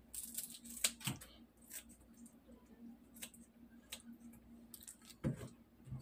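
Kitchen scissors snipping while trimming raw shrimp: a series of short, sharp, irregularly spaced snips.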